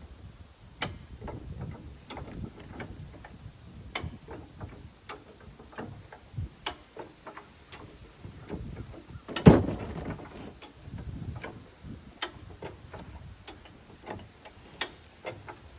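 Parts of a wood chipper being handled during assembly: sharp clicks and knocks about once a second, with one louder clank about nine and a half seconds in.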